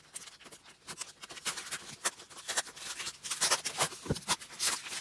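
Packing tape being peeled off a cardboard box by hand, a run of short crackling rips with cardboard scraping, busiest in the second half.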